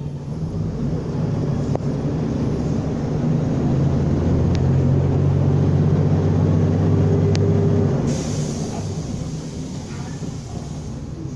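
Mercedes-Benz O500U city bus diesel engine pulling under load through its automatic gearbox, growing steadily louder, then easing off about eight seconds in as a high hiss comes in.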